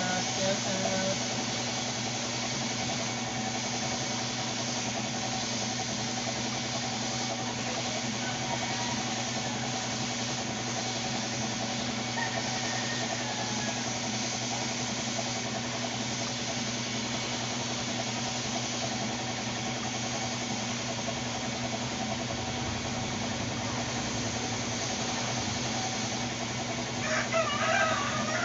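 Air compressor running with a steady hum, under the hiss of a gravity-feed spray gun spraying paint. A rooster crows briefly near the end.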